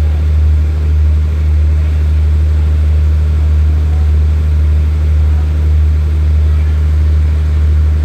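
Diesel engine of a stationary passenger train idling, a steady low drone that swells slightly about once a second.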